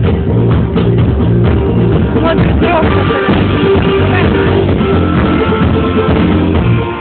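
A rock band playing a song live, with drums, bass and guitar loud and steady throughout; the sound is dull, with no highs.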